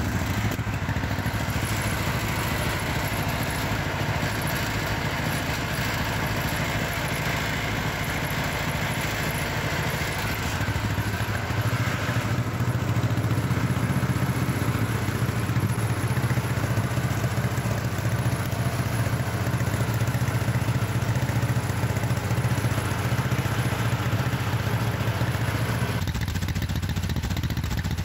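John Deere 420 crawler's two-cylinder engine running steadily.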